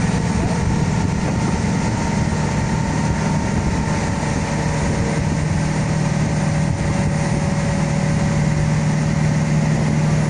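Speedboat engine running steadily under load while it tows a parasail, a constant low drone with the rushing wash of the churning wake.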